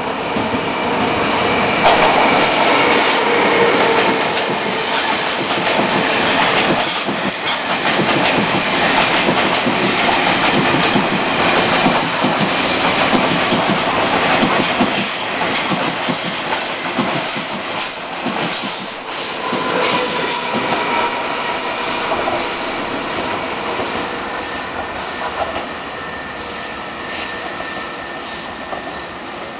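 A Taiwan Railways E1000 push-pull Tze-Chiang express passes slowly: its wheels click over the rail joints and squeal on the curved track. The train gets loud within the first couple of seconds and fades gradually after about twenty seconds as it pulls away.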